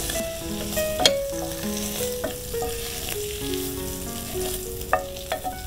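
Canned mushrooms sizzling in oil in a non-stick frying pan while a wooden spatula scrapes and knocks against the pan a few times as they are scooped out. A soft background melody plays underneath.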